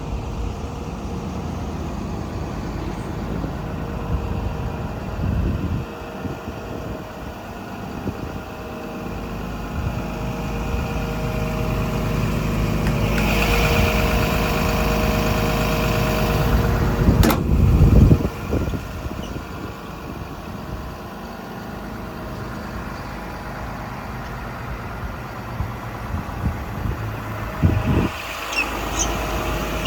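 Komatsu PC200-11 hydraulic excavator's diesel engine running while the hydraulics are worked. The engine note grows louder through the middle with a whine over it, then a sharp knock and a heavy thump, with a few smaller knocks near the end.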